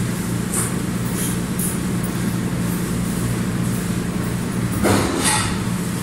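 Steady low mechanical hum from kitchen machinery, with a brief rushing noise about five seconds in.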